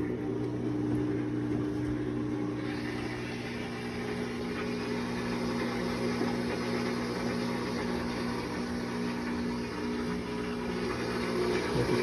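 Whirlpool Xpert System washer's drain pump humming steadily at the start of a spin cycle, before the tub begins to turn. A hiss joins the hum a couple of seconds in.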